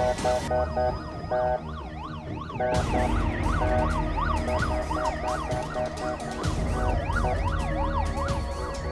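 Police car siren on a rapid yelp, its pitch sweeping up and down a few times a second, over background music with a steady beat.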